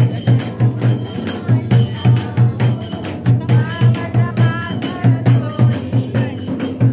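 Devotional aarti being sung to a steady drum beat with jingling tambourine.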